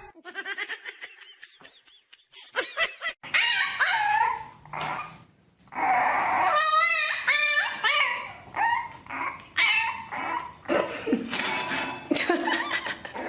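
A pet animal calling: a run of pitched, wavering cries starting about three seconds in, with a fast warbling call around seven seconds in.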